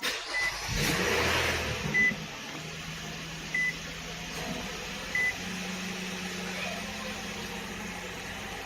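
Car's warning chime beeping four times, short and evenly spaced about a second and a half apart, as the car is switched on. Under it is a low rumble at first that settles into a steady hum.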